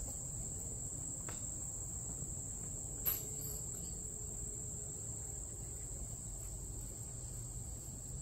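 Insects trilling in one steady, high-pitched drone, with a short click about three seconds in.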